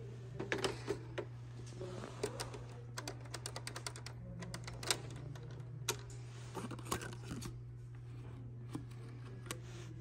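Long fingernails tapping and clicking on hard plastic novelty telephones in irregular clusters of sharp taps, with a quick run of taps about three seconds in. A steady low hum runs underneath.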